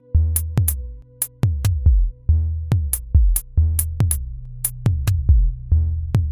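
Electronic music played from a software drum machine and synthesizer. A looping beat of sharp hi-hat clicks and heavy kick-drum thumps runs over steady low synth tones.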